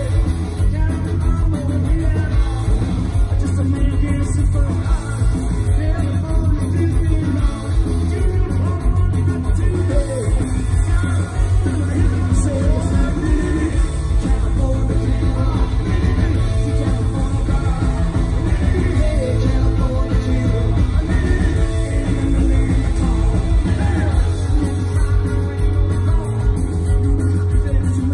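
Punk rock band playing live at full volume: electric guitar, bass and drums, with a man singing over them.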